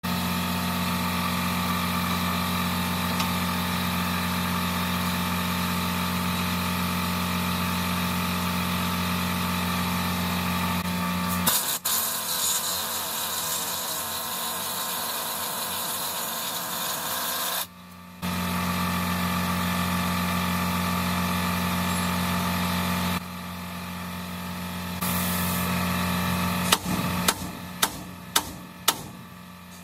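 A steady mechanical drone, broken in the middle by an air impact wrench working on a nut of a truck's steerable lift axle knuckle. Near the end comes a quick run of sharp hammer blows on the steering arm, about two a second.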